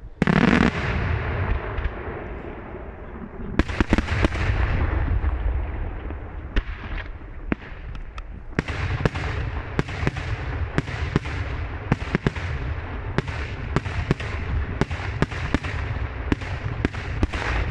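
Daylight aerial fireworks shells bursting: a heavy bang at the start, another about three and a half seconds in, then from the middle on a quick string of sharp reports, about two a second, over a low echoing rumble.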